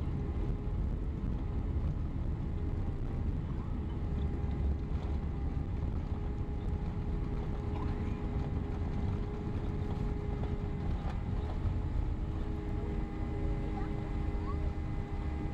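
Jet airliner engines heard across an airport: a steady low rumble with a faint steady whine above it, a second, lower tone joining near the end.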